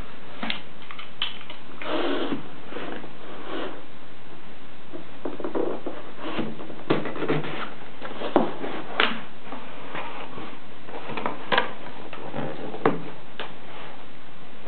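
Cardboard shipping box being handled and opened by hand: irregular scrapes and rustles with several sharp knocks, over a steady hiss.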